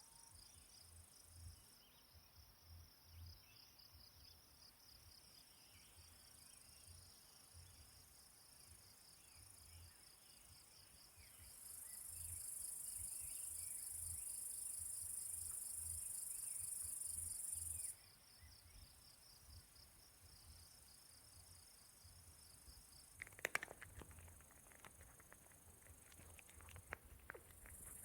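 Faint insects chirping in a fast, even pulse, with a steady high hiss that grows louder for several seconds midway. The chirping stops about five seconds before the end, and a cluster of clicks and taps follows.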